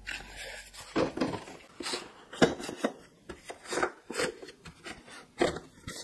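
Kraft-paper storage bags crinkling and rustling in a series of short, irregular bursts as they are opened out and pushed into shape by hand.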